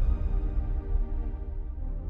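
Decaying tail of a cinematic trailer impact: a deep low rumble with held, ringing tones, fading slowly.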